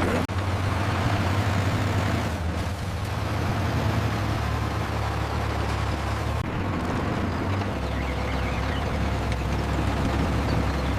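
A farm machine's engine running steadily: a low, even drone with a rushing noise over it, its tone shifting slightly about six and a half seconds in.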